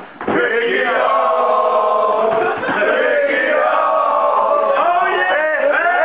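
A group of men chanting together in unison. After a brief break just at the start they hold long sung notes that bend slightly in pitch.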